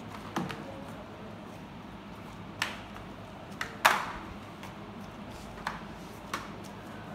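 Flat mop being pushed over a tiled floor, its head and handle knocking and clacking against the tiles: about six short sharp knocks at uneven intervals, the loudest a little past the middle, over a faint steady hum.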